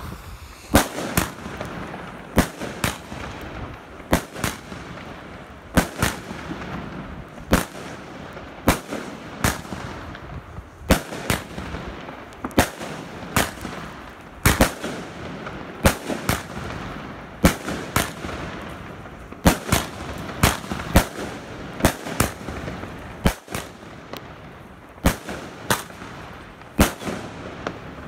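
Wolff 16-shot pyromold firework cake firing its shots in sequence, with sharp bangs roughly every second, often in close pairs, over a steady crackling hiss.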